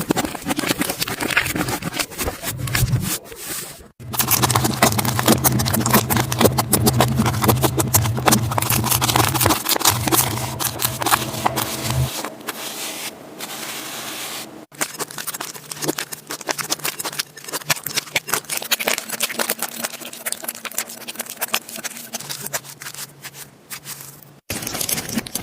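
Slime being squeezed and pressed by hand, giving a dense stream of crackling, popping clicks. It comes in several short takes, with abrupt cuts about four, fifteen and twenty-four seconds in.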